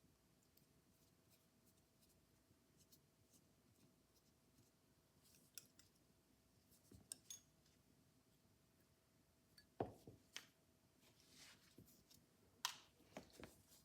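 Mostly near silence with scattered faint clicks and short scrapes of small metal phonograph-governor parts being handled and worked apart by hand, the sharpest clicks about ten and thirteen seconds in.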